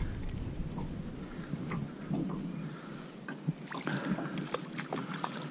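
Small boat on the water with light water sounds and a few soft clicks, then a hooked crappie splashing at the surface beside the boat a little under four seconds in.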